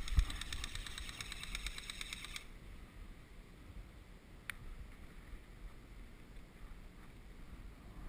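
Airsoft electric rifle firing a full-auto burst of rapid, evenly spaced shots, about a dozen a second for roughly two and a half seconds, with a low thump at the start. A single sharp click follows about four and a half seconds in.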